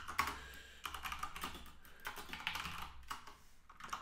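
Typing on a computer keyboard: quick, irregular keystroke clicks in short runs with brief pauses between them.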